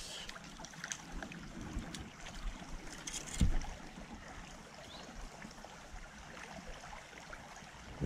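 Small creek running steadily over rocks. A brief thump about three and a half seconds in, with a few faint clicks.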